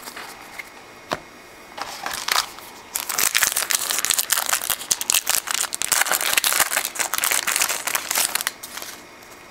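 Wrapper of a 2009 Upper Deck Philadelphia football card pack crinkling as it is handled and opened: a few light clicks at first, then several seconds of dense, continuous crackling that stops shortly before the end.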